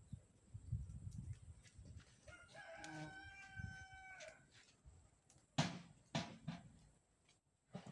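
A rooster crowing once off in the distance: one long, steady-pitched call lasting about two seconds, starting a couple of seconds in. A few sharp knocks follow a little over halfway through; they are louder than the crow.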